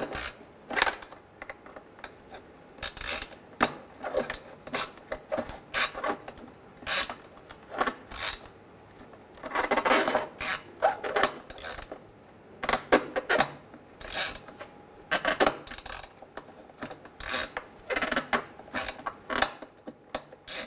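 Hand ratchet clicking in short bursts of strokes, with pauses, as a nut is run down and tightened onto a shield stud under the car.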